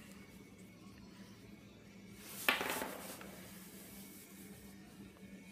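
A single short knock and scrape of parts being handled on a workbench, about two and a half seconds in, over a faint steady hum.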